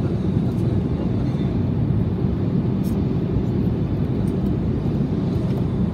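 Steady low rumble of a passenger airliner's cabin in flight: engine and airflow noise heard from inside the cabin.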